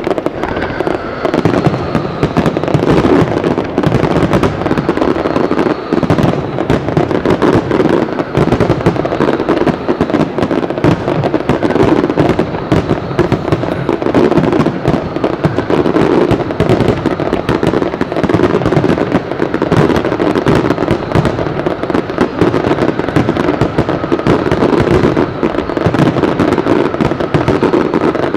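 Aerial firework shells bursting in a dense, continuous barrage, the bangs crowding one on another without a pause.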